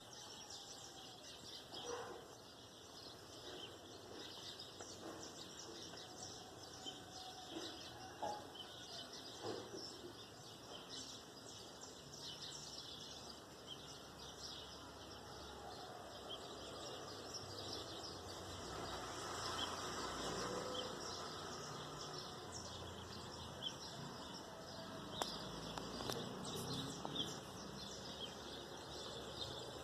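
Birds chirping and calling, many short high chirps scattered throughout over faint outdoor background noise.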